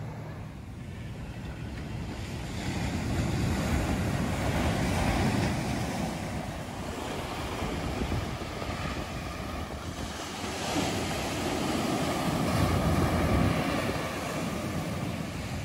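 A rushing noise, like wind or surf, that swells and eases every several seconds.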